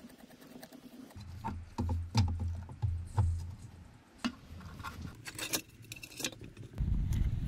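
Clicks, taps and rattles of a screwdriver and metal lathe parts being handled as the mini lathe's headstock cover and motor control box are taken off. Low rumbling handling thumps come around two to three seconds in and again near the end.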